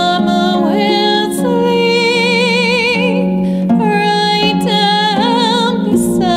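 A woman singing a slow lullaby in long held notes with marked vibrato, over a plucked-string accompaniment.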